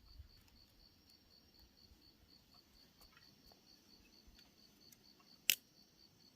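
An insect chirping steadily in quick, even pulses, with faint scattered clicks and one sharp click about five and a half seconds in.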